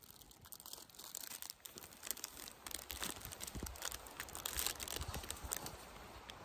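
Clear plastic snack wrapper crinkling in the hands as it is handled and pulled open, a dense run of crackles.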